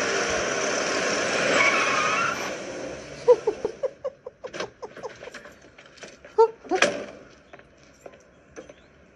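A car drives up with its engine and tyres loud for the first two seconds or so, then fades away. Birds chirp in short, repeated calls through the rest.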